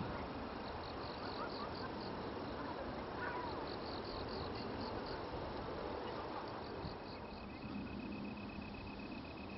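Field insects chirping in short pulses, repeated in groups, over a steady hiss. About seven seconds in, a second insect starts a fast, even trill.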